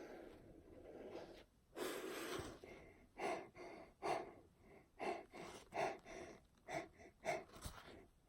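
A woman breathing unevenly: one longer breath, then a run of short gasping inhales about two a second, the build-up to a forced sneeze.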